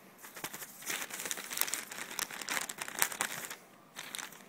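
Newspaper crinkling and rustling as a cat paws and scratches at the sheets, a dense run of crackles that breaks off near the end and returns in one short flurry.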